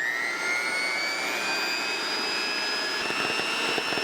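Electric mixer motor running at medium speed whisking whipping cream, a steady high whine whose pitch steps up slightly about three seconds in.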